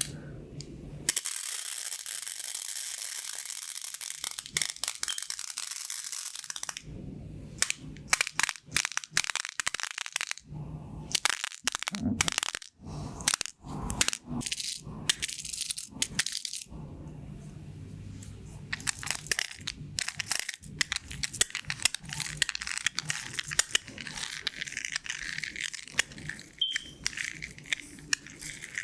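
Pins of a pin art toy sliding and rattling in their frame. A steady rushing hiss lasts several seconds, then gives way to a long run of sharp clicks and clatter as the pins drop and knock together.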